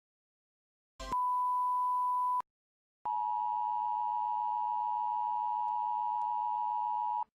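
Emergency alert system attention tones. First a short steady beep, then after a brief gap a long steady two-pitch tone of about four seconds that cuts off abruptly.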